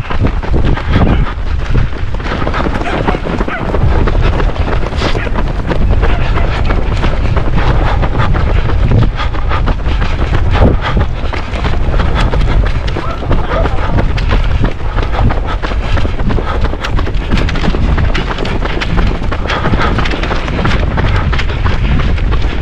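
Wind buffeting the microphone of a camera carried by a running racer: a loud, steady low rumble with rough crackling above it.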